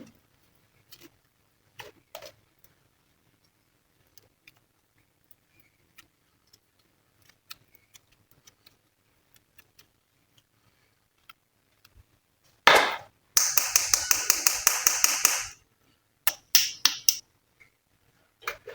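Glossy slime being squeezed and worked by hand: scattered faint clicks, then a loud sharp pop about two-thirds of the way in, followed by a quick run of sharp pops, about seven a second, for some two seconds, and a few more pops shortly after.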